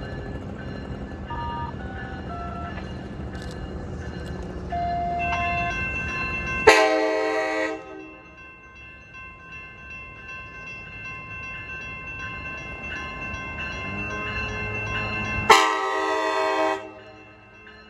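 Locomotive air horn sounding two loud blasts of about a second each, one about seven seconds in and one near the end, over the low rumble of a train that fades after the first blast.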